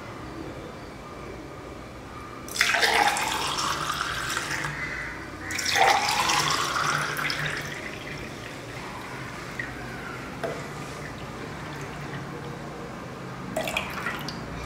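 Amla (gooseberry) juice poured into two tall glasses one after the other, the pitch of the splashing rising as each glass fills. A few light taps follow near the end.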